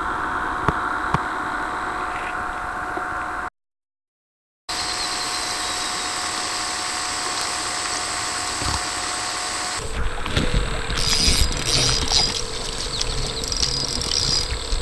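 Steady rushing of river water, broken by a short dropout a few seconds in. From about ten seconds in the sound grows louder and uneven, with irregular knocks and splashing close by.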